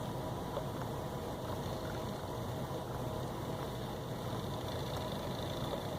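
Antique New Home sewing machine running to wind a long bobbin, its bobbin winder spinning with a steady mechanical whir and a few light ticks.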